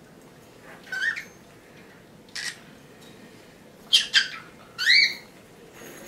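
Small pet parrot giving a string of short squawks and chirps, about five calls, several sliding upward in pitch. The loudest come near the end.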